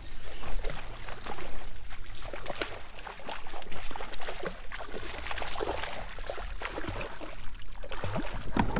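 Hooked brook trout splashing and thrashing at the water's surface, a run of irregular splashes with small knocks in between.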